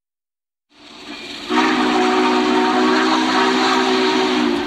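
A train whistle sounding one long multi-note chord over a steady rush of noise. It fades in about a second in, swells to full strength at about a second and a half, and breaks off briefly near the end.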